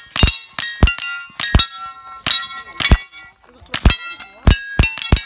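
A rapid string of rifle shots, about one every half second, each followed by the ringing clang of a steel plate target being hit.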